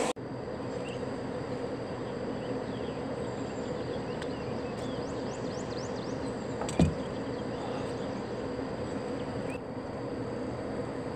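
Steady outdoor ambience: a continuous low mechanical hum with faint high chirps from small animals, and one brief louder sound about seven seconds in.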